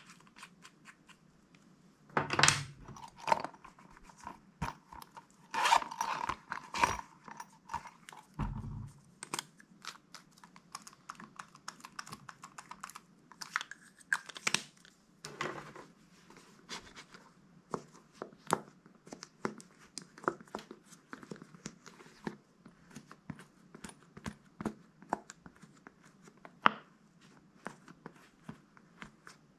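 Slime being worked by hand: a string of irregular sticky clicks and crackles, with a few louder tearing crackles in the first third.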